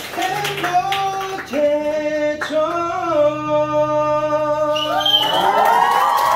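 A Korean song played over a backing track, with one long note held for several seconds. Near the end the dinner guests cheer and begin to clap.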